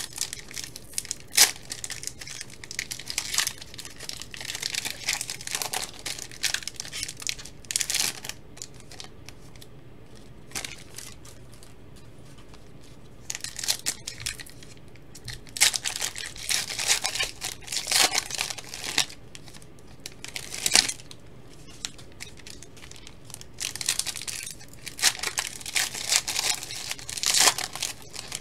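Foil wrappers of trading card packs being torn open and crinkled by hand. Three spells of crackling and ripping, separated by short pauses, with a sharp rip about a second and a half in.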